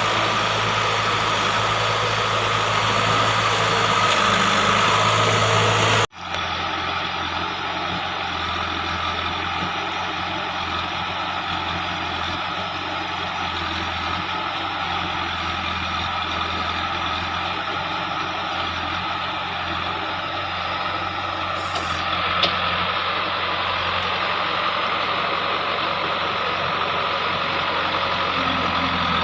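JCB 3DX backhoe loader's diesel engine running steadily. About six seconds in, the sound cuts out for an instant and comes back a little quieter.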